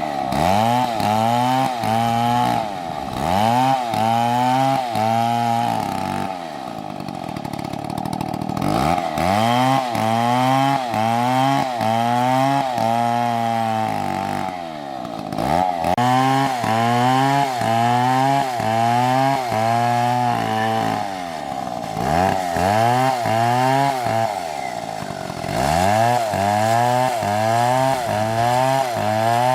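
Chainsaw cutting into a tree trunk under load, its engine pitch sagging and recovering about twice a second as the chain bites. Several times it eases off briefly before bearing down again.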